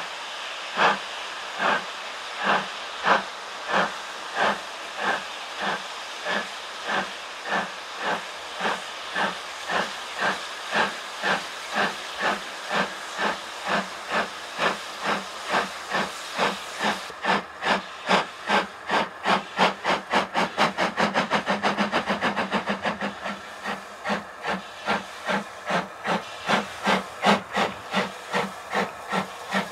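Exhaust beats of LMS Fowler 4F 0-6-0 steam locomotive No. 43924 working a train: sharp, regular chuffs over a steady hiss. The beats quicken into a rapid flurry about twenty seconds in, then drop back to a slower beat.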